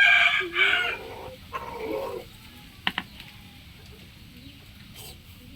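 A rooster crowing, loudest in the first second, followed by a shorter, lower call about a second and a half in. Then mostly quiet, with a sharp click about three seconds in.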